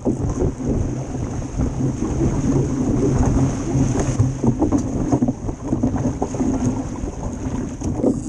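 Wind buffeting the stern-mounted GoPro's microphone in a steady low rumble, with water rushing and splashing along the hull of a heeled Club 420 dinghy and spray pattering over the boat.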